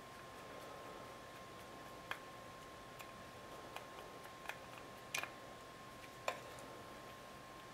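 Handling of small camera parts and a screwdriver: a few light, irregular clicks and taps, about six, over a faint steady high tone.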